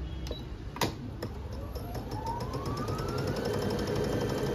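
Brother BF5700 computerized sewing machine starting to sew. After a couple of clicks, its motor whine rises in pitch over about two seconds as it speeds up, then runs steadily with rapid needle strokes.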